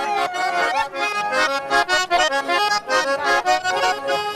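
A garmon (Russian button accordion) playing a folk dance tune, with quickly changing notes over held chords in a steady rhythm.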